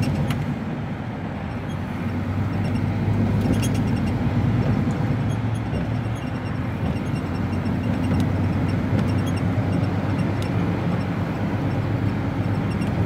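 Steady low drone of an HGV lorry's diesel engine and road noise, heard inside the cab while driving at speed.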